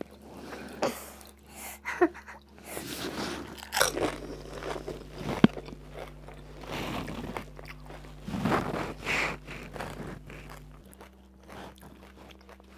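Crisp fried fuchka (pani puri) shells being cracked open and bitten, with irregular crunching and chewing, and one sharp crack a little past five seconds in.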